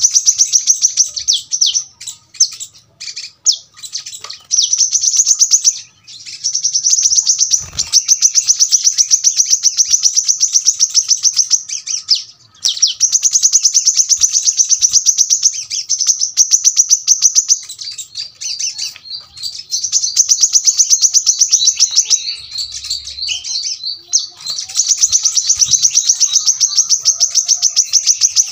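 Brown-throated sunbird (kolibri kelapa) singing in long, rapid, high-pitched trills of tightly packed notes, each run lasting several seconds with short breaks between.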